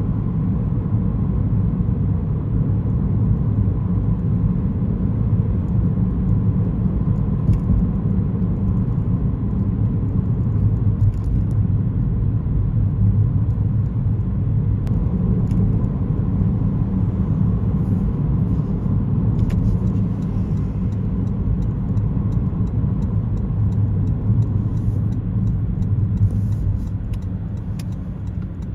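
Steady low rumble of a car driving along a city road, tyre and engine noise heard from inside the car, growing a little quieter near the end.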